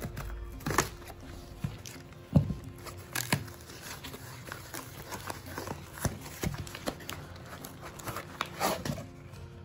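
A cardboard shipping box being cut open with scissors and handled: irregular snips, cardboard rustles and knocks as the flaps are pulled back and the box is turned over, the sharpest knock about two and a half seconds in.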